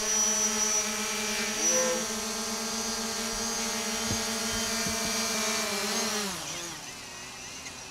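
DJI Mavic Pro quadcopter's propellers buzzing steadily in a low hover. About six seconds in the motors spin down with a falling pitch and fade as the drone is landed on the pilot's hand.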